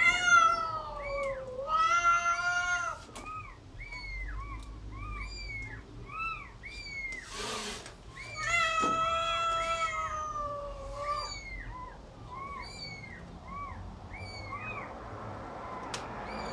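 Nursing kittens mewing over and over in short, high-pitched calls, with longer drawn-out cries near the start and again around the middle. A brief rustle comes about halfway through.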